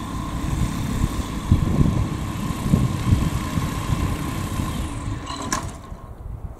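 Engine of a flex-wing microlight trike idling with its pusher propeller turning, then shut down about five and a half seconds in with a brief click. Only a much quieter background is left after that.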